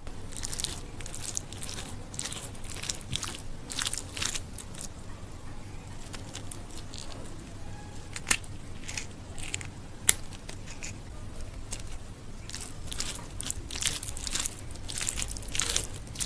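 Fingers squishing and crumbling soft, starchy rice and crushing a roasted dried red chilli into it, heard close up as a run of short crackly, rustling strokes. Two sharp clicks stand out in the middle.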